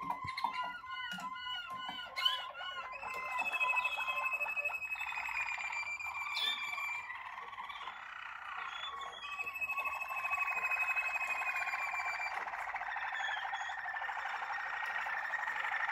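Waterslager (Malinois) canaries singing: a run of quick repeated arched notes in the first few seconds, then long held notes and rolling trills.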